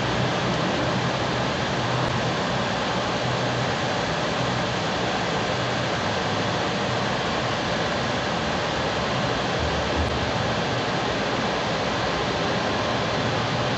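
Anycubic Kobra 2 Neo 3D printer's cooling fans running with a steady, even whir while the nozzle heats up before extruding filament.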